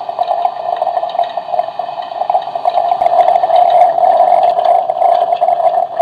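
Just Like Home toy coffee maker playing its brewing sound effect: a steady, loud bubbling and gurgling of coffee brewing that cuts off suddenly at the end.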